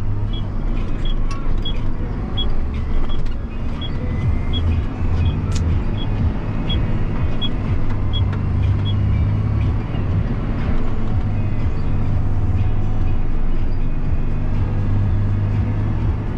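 John Deere 7250R tractor's diesel engine running steadily while driving, heard inside the cab. The turn indicator ticks two to three times a second through the turn, then stops about halfway through.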